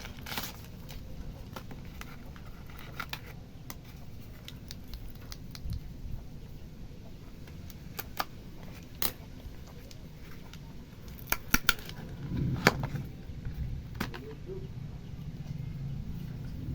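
Parcel and packaging being handled during unboxing: scattered sharp clicks and small knocks at irregular moments, busiest and loudest a little past the middle, over a low steady hum.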